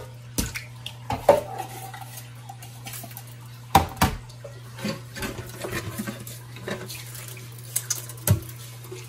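Knocks and clatter in a stainless steel kitchen sink as a whole walleye is handled and rubbed with salt to clean off its slime, with a few sharp knocks spread through.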